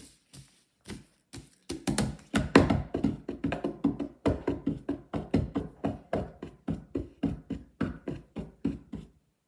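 An improvised rhythmic beat of short, sharp percussive hits, a few scattered ones at first and then a steady pattern of several a second from about two seconds in, which stops suddenly near the end.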